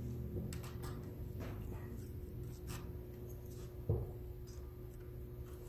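Small screwdriver turning out a motherboard screw in a Lenovo IdeaPad 310 laptop's chassis: faint scraping and light ticks, with a soft knock about four seconds in.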